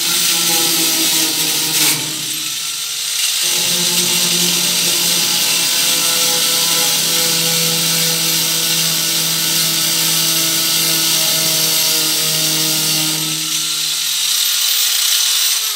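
Corded electric angle grinder running at full speed: a steady motor whine with a strong hiss. It falters briefly about two seconds in, and near the end it is switched off and the whine falls away as the disc spins down.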